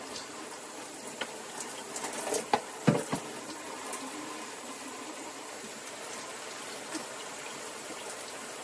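Shower water running steadily as a continuous hiss, with a few knocks about three seconds in.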